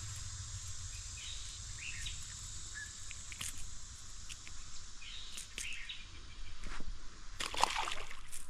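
Outdoor ambience: a few short bird chirps over a steady background hiss, with scattered small clicks and a louder rustle of activity near the end.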